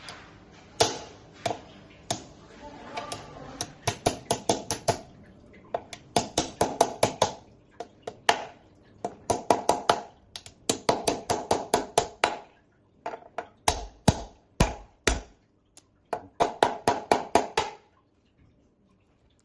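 Repeated sharp clicks and taps from hand-tool work on an e-bike's front fork and headset. They come in quick bursts of about half a dozen to ten, several a second, with a few heavier thuds near the middle, and stop shortly before the end.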